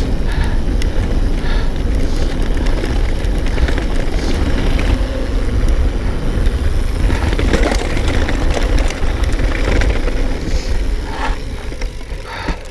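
Wind buffeting the microphone and knobbly tyres rumbling over a dirt track on a fast mountain-bike descent, with the bike rattling over bumps. The noise eases near the end as the bike slows.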